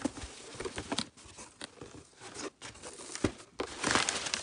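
Cardboard shipping box being opened: flaps folded back and crumpled kraft packing paper crinkling and rustling under the hands, with a few light knocks, loudest near the end.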